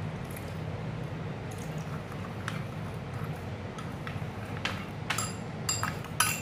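A spoon stirring a wet yeast-and-milk mixture in a small glass bowl, scraping and clinking against the glass, with the clinks sharper and more frequent near the end.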